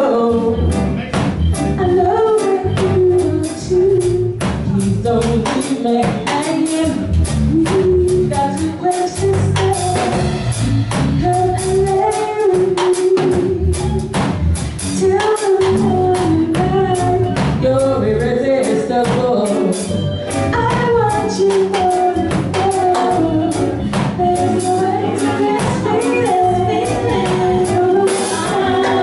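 Live reggae band playing: a woman sings the lead melody over drum kit, guitar and bass, with other singers joining in.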